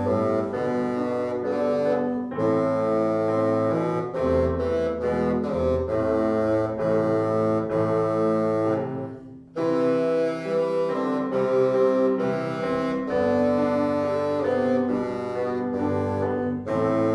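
Bassoon playing a melody of held notes with grand piano accompaniment; the music breaks off briefly about nine and a half seconds in, then resumes.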